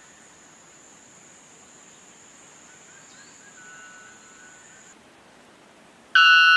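Outdoor background with a steady high insect buzz that stops about five seconds in, and a few faint bird notes. Near the end a white bellbird breaks in with its very loud call.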